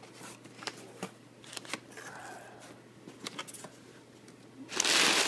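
Cardboard box flaps and packing paper being handled: light scattered rustles and taps, then a louder crinkling of the packing paper starting near the end.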